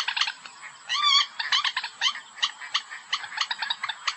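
Common moorhen calling from a lure recording: a quick string of short, sharp notes, about three a second, with a longer warbling call about a second in.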